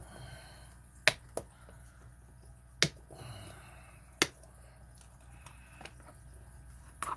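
Lock-picking tools clicking against each other as they are sorted through: about five sharp, irregularly spaced clicks.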